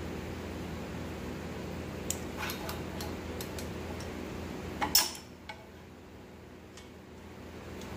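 Click-type torque wrench on a flywheel bolt: a few light metallic clinks, then one sharp click about five seconds in as the wrench reaches its set torque of 101 foot-pounds. A steady hum runs underneath.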